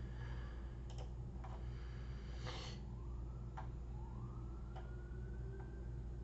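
A few sharp, scattered clicks, typical of a computer mouse, over a steady low electrical hum. Twice in the second half a faint tone glides slowly upward.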